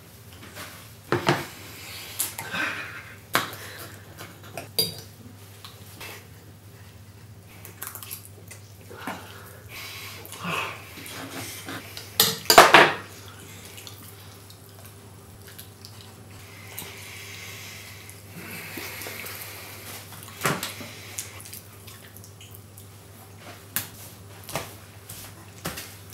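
Knife and fork clinking and scraping against a ceramic dinner plate as food is cut and eaten, in scattered sharp clinks with the loudest about halfway through. A stretch of steady scraping comes about two-thirds of the way through.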